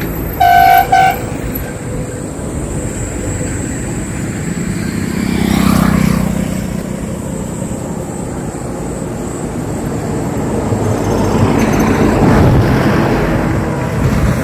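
A vehicle horn blasts once briefly near the start, then road traffic: vehicles passing close by, their noise swelling about six seconds in and again around twelve seconds.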